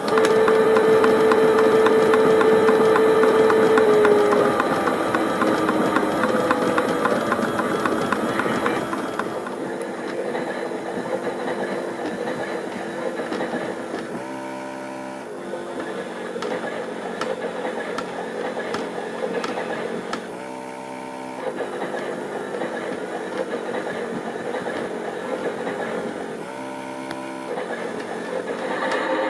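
Miele Novotronic toy washing machine running on batteries: a loud steady motor whine that shifts in pitch a few times and drops away about nine seconds in, then short motor bursts about every six seconds as the drum turns.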